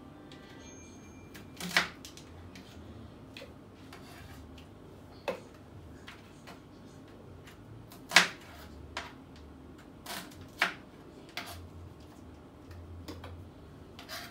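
Kitchen knife knocking on a cutting board in single, irregularly spaced chops while onions are cut, about eight sharp knocks in all, the loudest about eight seconds in.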